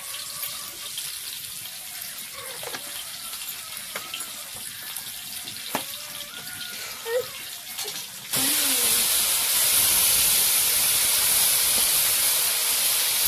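Small fish tipped into hot oil in a wok: about eight seconds in a loud, steady frying sizzle starts suddenly and carries on, after a quieter stretch of faint crackle with a few light clicks.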